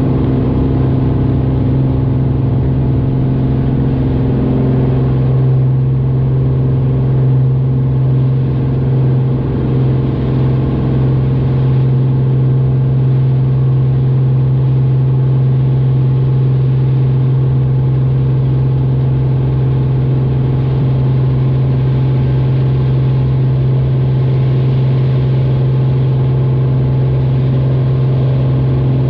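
Single-engine light airplane's piston engine and propeller at takeoff power, a loud, steady drone heard inside the cockpit through the takeoff roll, lift-off and initial climb.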